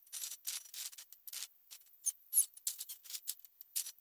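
Steel wool scrubbing the side of an aluminum jon boat hull, wet with a vinegar-and-water spray to lift hard-water stains, in quick strokes about three a second.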